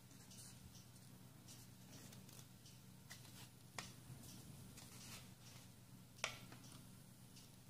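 Faint rustling and crinkling of a sheet of origami paper being folded and creased by hand, with two sharper ticks, one about four seconds in and a louder one about six seconds in.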